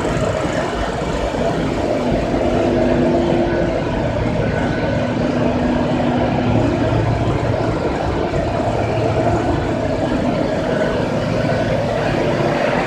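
Sawdust charcoal making machine running: a loud, steady machinery noise with a few faint hums that come and go.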